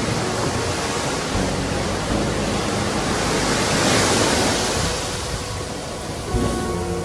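Ocean waves breaking and washing on the shore: a steady hiss of surf, with one wave breaking loudest about four seconds in and then easing off.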